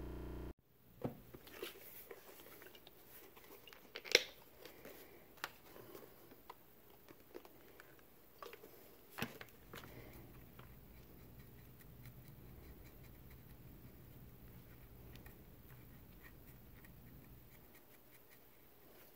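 Scattered light clicks and taps of a plastic sun visor mirror door being handled on paper, the sharpest about four and nine seconds in. After that, a low steady hum with only faint ticks while the door is held still.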